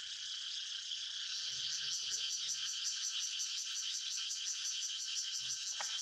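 Dense, steady chorus of calling insects in tropical forest, high-pitched and pulsing quickly and evenly.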